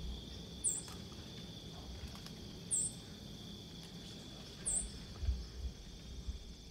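Quiet outdoor ambience: insects drone steadily at a high pitch. Three short, very high chirps come about two seconds apart, and a few low thumps come near the end.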